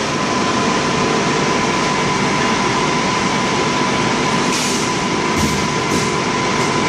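Metal lathe running with the workpiece spinning in a 3-jaw chuck: a steady mechanical hum with a thin, steady whine, and a few brief ticks in the second half.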